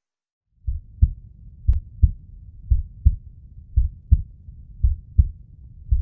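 Heartbeat sound effect: low double thumps, one pair about every second, starting about half a second in.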